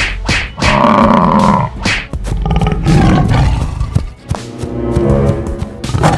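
Cartoon animal roar sound effects over background music: a few sharp hits at the start, a loud roar about a second in, then further roars and growls.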